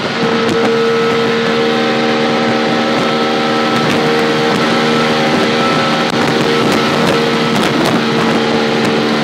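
Auto rickshaw's small engine running hard at a steady high speed while driving on the highway, with wind and road noise rushing through the open cab.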